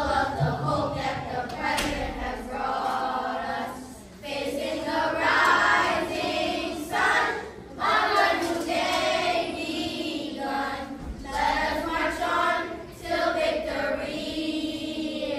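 A choir singing, the voices holding long notes in phrases with short breaks between them.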